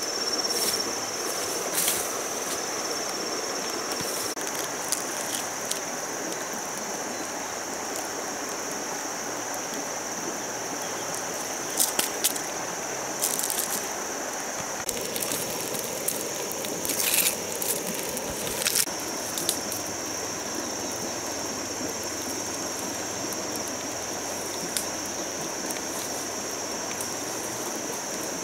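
Steady high-pitched drone of insects over the even rushing hiss of a river, with scattered sharp cracks and clicks, a cluster of them about halfway through.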